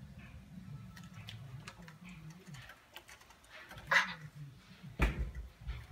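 A ladle stirring soup in a metal pan, with scattered light clicks and scrapes. There are two louder knocks of the ladle against the pan, about four seconds in and about five seconds in.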